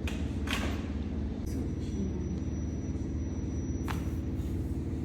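A steady low hum, with a few short clicks over it: one near the start, one about half a second in, and one near four seconds in.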